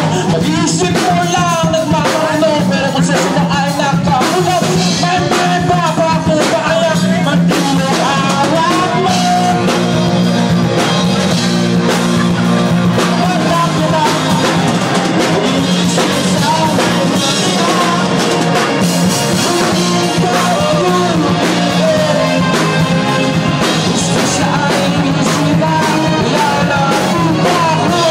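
Live rock band playing an original song: drum kit keeping the beat, electric keyboard and a bass line of steady low notes under a singing voice.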